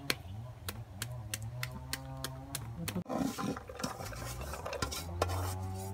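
Small kitchen knife clicking against a santol fruit as its skin is scored, a sharp tick about three times a second, thinning out in the second half, over a low steady hum.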